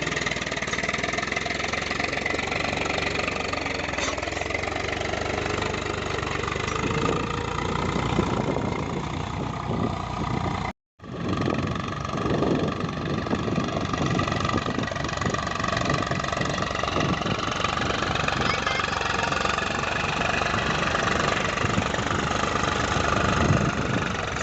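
Tractor diesel engine running steadily, with a short break to silence about eleven seconds in.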